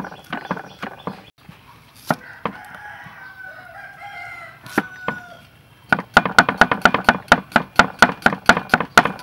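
Cleaver chopping chillies and shallots on a wooden chopping block, quick strikes about five a second, then a couple of single knocks. A rooster crows in the background from about three to five seconds in. Fast chopping starts again near six seconds and is the loudest part.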